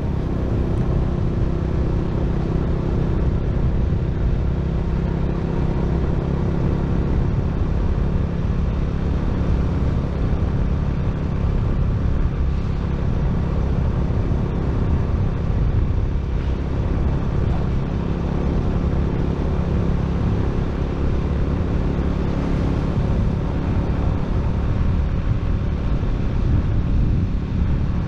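Steady rumble of a moving road vehicle's engine and tyres at an even speed, with wind noise on the microphone.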